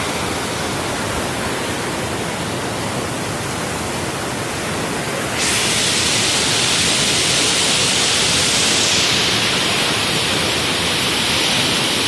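Waterfall rushing, a steady loud wash of falling water; about five seconds in it turns suddenly louder and hissier.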